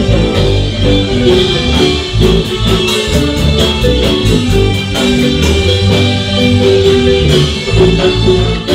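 Live Guatemalan-style marimba band playing a dance tune: marimba melody over a steady bass line, with drums.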